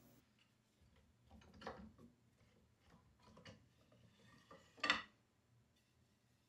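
A few faint knocks and clicks of a wooden table leg and clamp hardware being handled in a mortising jig. The loudest knock comes about five seconds in, with a smaller one near two seconds and very little sound in between.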